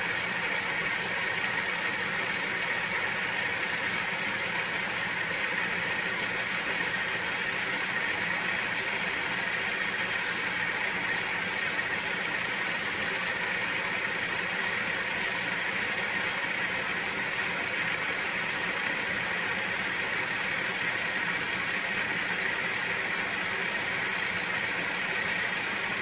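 Atlas 618 lathe running steadily while taking a light finishing cut, its carriage fed slowly along by a small electric motor turning the lead screw. A steady high-pitched whine sits over the even running noise.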